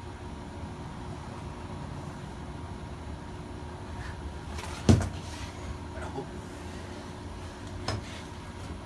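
A loud sharp knock about five seconds in and a lighter knock near the end, from tapping on a generator stator housing that is stuck on the engine. A faint steady hum runs underneath.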